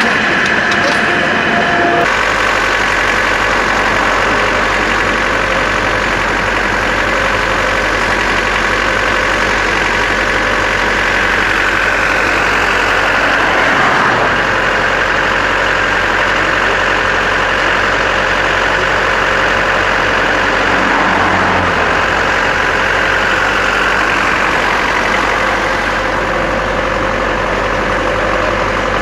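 Fire engine's diesel engine idling steadily close by, an even, unchanging rumble.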